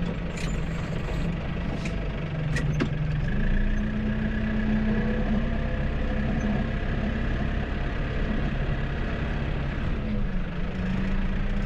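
Vehicle engine running steadily while under way, its note stepping up in pitch about three seconds in, with a few sharp clicks in the first three seconds.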